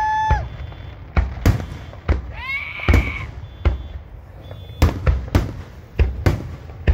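Aerial fireworks finale: shells bursting in a quick, irregular string of loud bangs, about ten in seven seconds. A whistle rises and holds briefly about two and a half seconds in.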